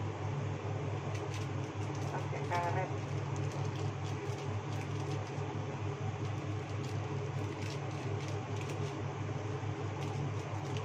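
Steady low mechanical hum, with a short voice-like sound about two and a half seconds in.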